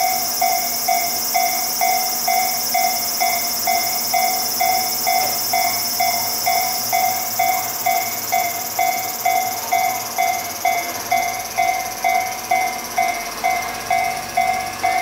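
Level-crossing alarm bell ringing evenly, about two strikes a second, beside a KiHa E130 diesel railcar; the railcar's engine note rises about eleven seconds in as it starts to pull away. A steady high hiss runs underneath.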